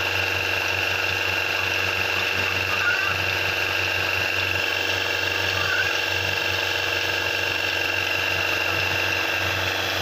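Electric vacuum pump and motor of a Bereket mobile milking machine running steadily, a constant hum with a fast mechanical rattle.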